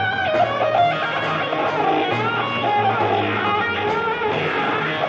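Live rock concert recording: an electric guitar plays lead with bent, gliding notes over a held bass line.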